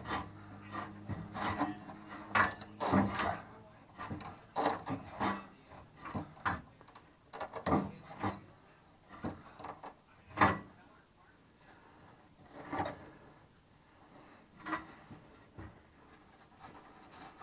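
Hand work on a car body: irregular knocks, clunks and short scrapes as parts are pulled, cut and handled, the loudest knock about ten seconds in.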